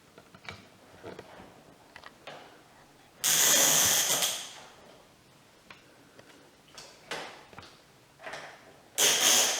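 Toy packaging and plastic toy parts being handled: scattered small clicks and knocks, with two loud bursts of rustling noise, one about three seconds in and a shorter one near the end.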